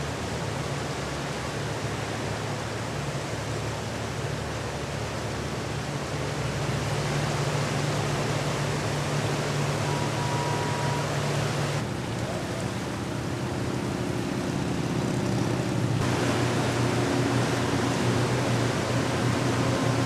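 Tugboat diesel engines running with a steady low drone under a continuous hiss of wind and water. The drone's pitch changes about twelve seconds in.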